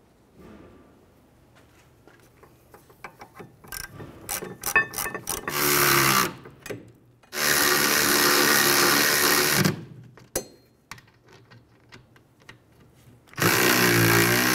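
A power tool runs in three short bursts, the middle one the longest, driving in and snugging up the rear brake caliper bracket bolts. Light metallic clicks and rattles of the socket and bolts come before the first burst.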